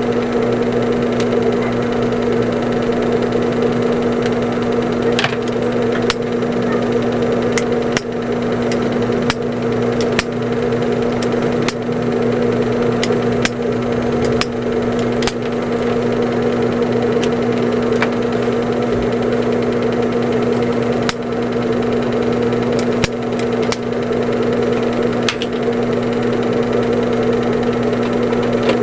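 Steady electric motor hum, typical of an industrial sewing machine's motor, with scattered sharp clicks.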